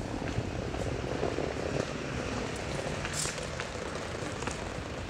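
Outdoor city ambience: a steady low rumble of distant traffic, with a few faint clicks.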